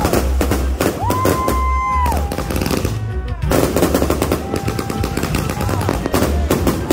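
Aerial fireworks bursting in rapid succession: a dense, continuous run of sharp bangs and crackles.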